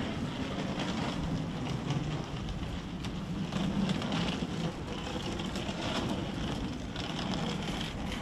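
Steady city street background: a low hum of traffic with no single sound standing out.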